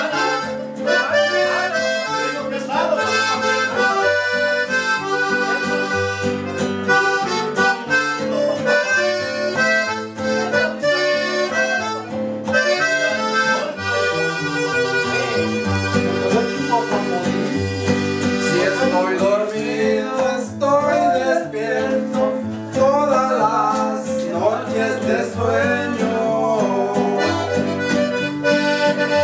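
Button accordion playing a tune, with bass notes changing in a steady rhythm underneath.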